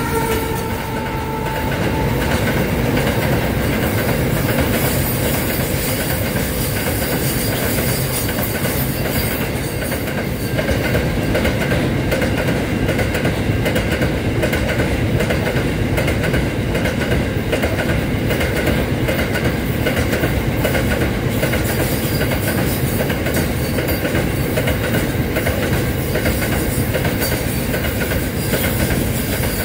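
Long freight train of open-top wagons passing close by at speed: a steady rumble and clatter of steel wheels on the rails that does not let up. In the first second or two the tones of the locomotive's horn die away.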